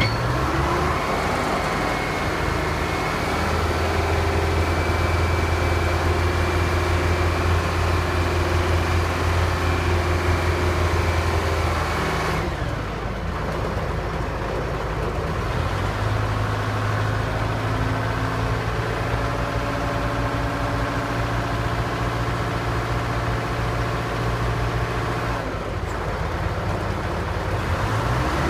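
Texoma 700 truck-mounted drill rig running: a steady engine hum that breaks off about twelve seconds in and settles at a different steady pitch a few seconds later, as the load on the engine changes.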